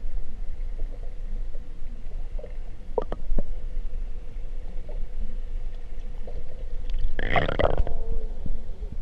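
Muffled low rumble of water against a camera held under water, with a few faint knocks and a louder gush of water about seven seconds in.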